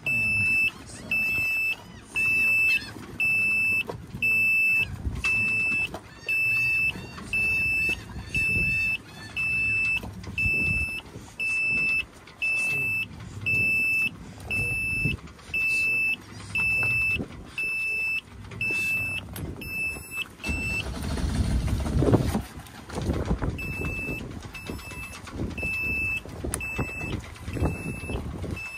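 Marine diesel engine's panel alarm beeping about once a second, the warning of ignition on with the engine not running: it has stalled and won't start with air in the fuel line after a fuel filter change. About three-quarters through the beeping stops for a couple of seconds under a louder burst of low noise, then starts again.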